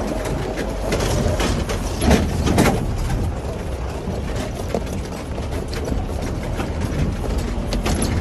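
Vehicle engine running with a steady low rumble, mixed with rattles and knocks, and a couple of louder bumps about two seconds in.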